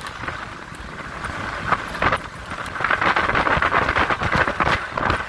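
Off-road 4x4 driving over sand dunes, heard from its open back: engine and road noise with irregular knocks and rattles as it jolts, getting louder about three seconds in.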